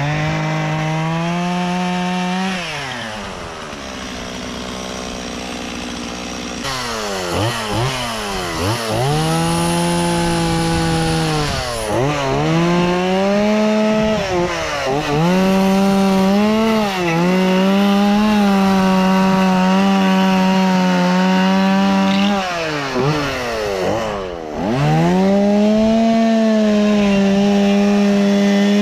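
Two-stroke chainsaw carving into a redwood log. It settles to a low idle for a few seconds early on, then is revved and cutting, the engine pitch dipping and recovering again and again as the chain bites into the wood, with a longer steady full-throttle cut in the second half.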